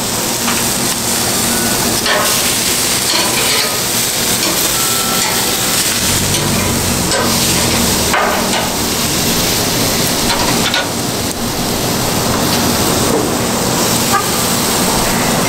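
Steaks sizzling on a hot barbecue grill: a steady hiss.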